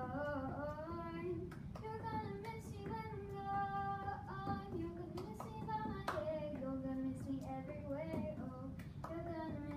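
A young girl singing a song solo, with melodic held notes, and a few hand claps in between.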